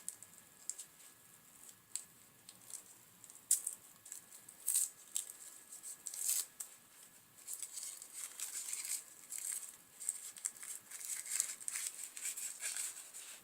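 Packaging being handled: crinkling and rustling as wrapped soap bars are taken out and turned over, with short sharp ticks, sparse at first and busier in the second half.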